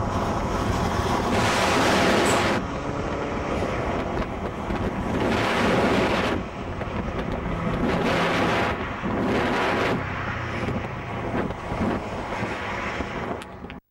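Car engine and tyre noise heard from a moving car at road speed, with wind rushing over the microphone in about five loud swells as other cars pass close alongside.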